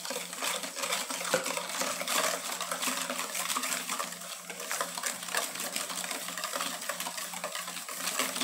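Wire whisk beating a thin batter in a stainless steel bowl: a fast, continuous run of clicks and scrapes as the wires strike the metal sides.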